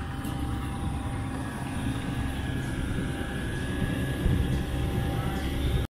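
Small outboard motor on an inflatable dinghy, new and being run in, running steadily at low speed with a low drone and a faint steady whine. The sound breaks off suddenly near the end.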